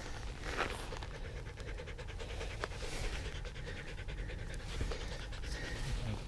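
A dog panting rapidly and steadily, winded from running alongside a mountain bike on the trail.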